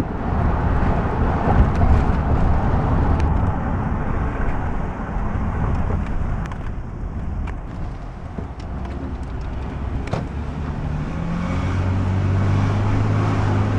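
Car cabin road noise while driving: the engine and tyres give a steady low rumble, with a steadier engine hum over the last few seconds.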